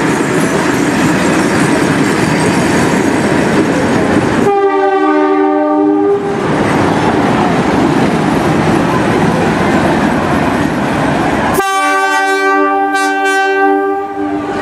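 Steam locomotive 3642, a NSWGR C36-class 4-6-0, running with a steady rush of exhaust and rolling noise. It sounds its steam whistle twice: a short blast about four and a half seconds in, and a longer one of about three seconds near the end.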